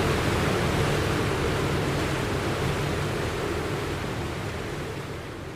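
Steady rushing wash of the sea, with no distinct wave breaks, slowly fading out.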